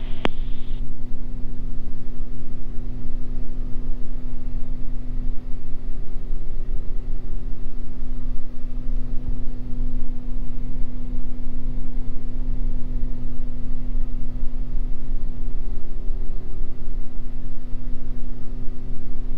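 Twin-engine Beechcraft G58 Baron's two Continental IO-550 six-cylinder piston engines and propellers droning steadily at climb power, heard from the cockpit. The pitch stays constant with no change in power.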